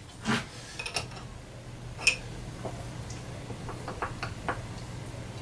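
A few light metal clicks and taps from handling a small open-end wrench at the end of a mini mill's X-axis table, the loudest about two seconds in, with a cluster of small clicks near four seconds. A steady low hum runs underneath.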